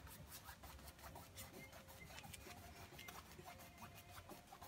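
Faint scratchy rubbing of a paintbrush's bristles stroking acrylic paint across a stretched canvas, a quick irregular run of small scratches.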